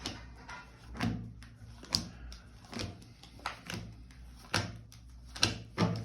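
Tarot cards being drawn and laid down on a table: a series of about eight irregular sharp taps and knocks.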